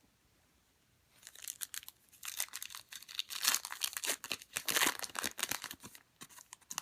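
Foil trading-card pack wrapper being torn open and crinkled in the hands, an uneven crackling that starts about a second in and dies away near the end.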